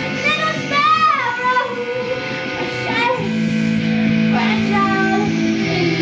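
Live song: a woman singing gliding, wavering notes over a sustained electric keyboard drone. A deeper held chord comes in about three seconds in.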